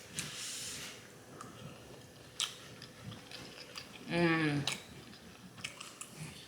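Close-up mouth sounds of a woman chewing spicy Hunan shrimp: wet smacking and clicking as she chews, with a short hummed "mmm" of enjoyment about four seconds in.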